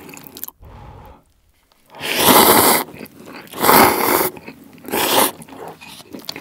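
Close-miked slurping of hot instant cup ramen noodles (Samyang Ramen spicy), three loud slurps starting about two seconds in, with softer chewing and mouth sounds between them.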